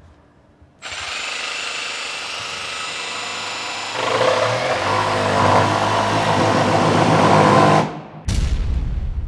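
Milwaukee M18 FUEL cordless body grip jigsaw on its auto setting: it switches on about a second in and runs slowly and steadily, then about four seconds in it speeds up and gets louder as the blade cuts into a wooden board, running for about four seconds before it stops. A sudden low boom comes in just after it stops.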